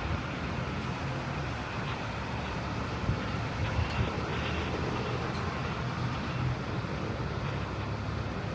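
Steady low outdoor rumble of city ambience heard from an open height.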